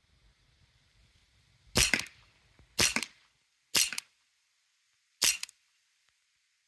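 Springfield Armory 1911 CO2 BB pistol firing four shots, about a second apart with a slightly longer gap before the last. Each shot is a sharp report trailing off in a brief clatter.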